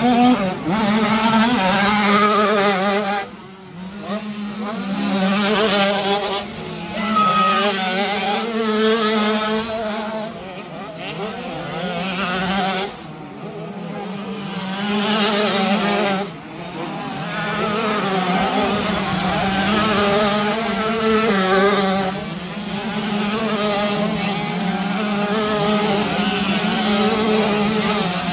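65cc two-stroke motocross bikes racing, their engines revving up and down as the riders work through the gears over the jumps and hills. The engine sounds from several bikes overlap. The sound drops away briefly a few times.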